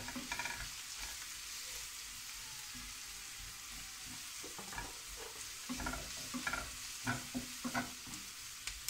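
Sliced onion and ground spices frying in oil in a non-stick frying pan, a steady high sizzle, while a wooden spatula stirs them. The spatula's scrapes and knocks on the pan come in a run in the second half.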